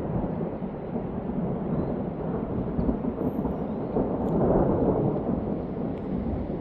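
A steady low rumbling noise that swells to its loudest about four to five seconds in.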